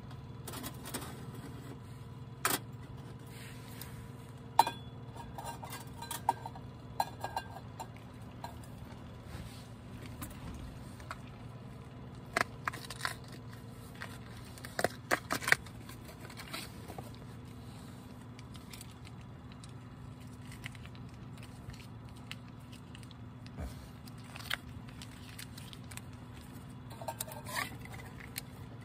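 Light metal clicks and clinks, scattered and irregular, as a small folding metal pot stand is fitted together and a metal mug is set down on it. Near the end there is a brief rustle of a foil food pouch being handled over the mug. A steady low hum runs underneath.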